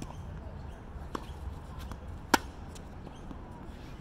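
Tennis rally: a fainter pock of the ball being struck about a second in, then a loud, sharp racket-on-ball hit a little past halfway.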